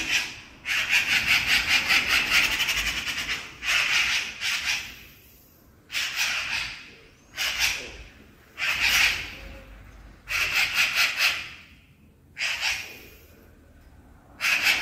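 Magpie chattering: rapid rattling calls in bursts, the first lasting nearly three seconds, then about seven shorter bursts of around a second each with brief pauses between. The chatter is the magpie's alarm call.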